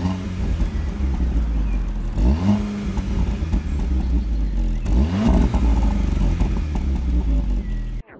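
Volkswagen Polo GTI petrol engine idling through its exhaust, blipped twice to a quick rev that rises and falls back to idle, about two and a half seconds apart.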